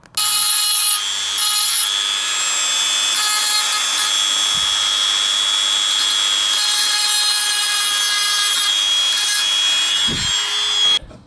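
Handheld rotary tool with a small bit running at high speed, grinding the aluminium tube of a car AC condenser around a pinhole leak to clean it before brazing. A steady high whine that starts suddenly and stops suddenly near the end.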